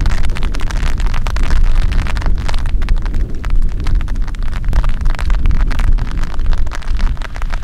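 Gusty mountain wind buffeting the microphone with a heavy, uneven low rumble, while rain is just starting and drops strike close by as many scattered sharp ticks.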